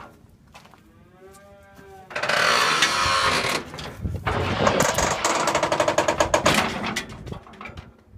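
A calf bawls once, briefly, with a falling pitch. Then comes a loud metal rattling and clattering of a livestock trailer as calves are let off it, running in a fast run of clanks and knocks.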